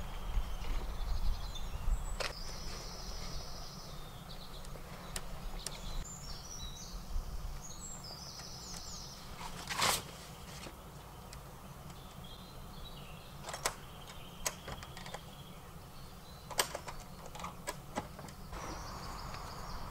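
Birds chirping and singing, with a low steady rumble underneath, broken by scattered clicks and knocks from the Alu-Cab roof tent's hard shell being folded down and latched shut. The loudest is a single knock about halfway through.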